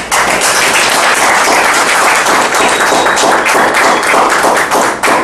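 A small audience applauding: many hands clapping together in a dense patter that starts abruptly.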